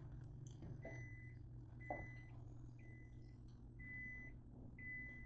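Microwave oven beeping five times, about a second apart, an alert from the oven defrosting pork. A soft knock about two seconds in.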